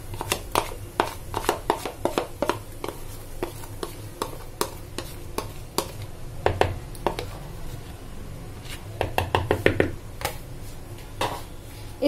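A spoon scraping and tapping against a plastic bowl as thick dhokla batter is scraped out: a string of light clicks and taps, busiest about six and nine seconds in.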